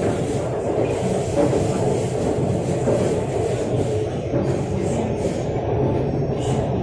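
Orange Line metro train running between stations, heard from inside the carriage: a steady rumble of wheels on track.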